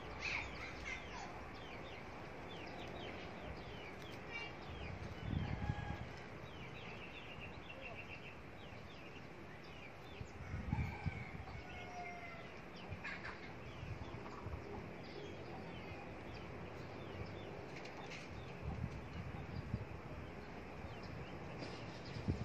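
Birds chirping and calling over a steady background hiss, with a few low thumps of wind on the microphone.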